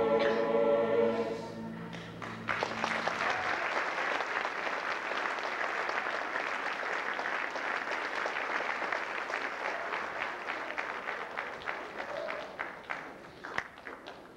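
A choir's held final chord ends about a second in, then an audience applauds, the clapping thinning to scattered single claps near the end.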